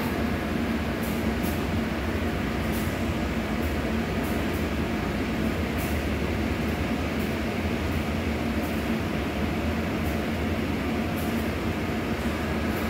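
Taipei Metro C301 electric train, a set with refitted propulsion equipment, running along the platform: a steady rumble of wheels and running gear with a steady low hum and scattered faint high clicks.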